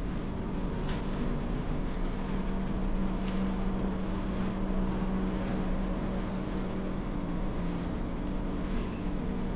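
Steady mechanical hum, a constant low drone over an even background noise, with a few faint clicks.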